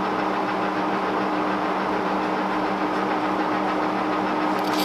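Monarch 18CY engine lathe running, its spindle and chuck turning a stainless steel bar with a steady mechanical hum and whine. Near the end a brighter hiss is added on top.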